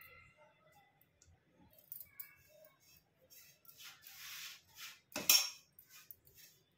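Kitchen dishes and utensils being handled: light clinks and scrapes, a rustling scrape about three and a half seconds in, then a louder clatter a little after five seconds.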